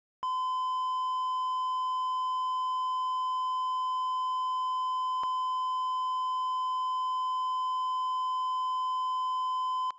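A steady electronic test tone, one unbroken pitch like a broadcast reference tone, starting just after the beginning and cutting off suddenly at the end, with a tiny click about halfway through.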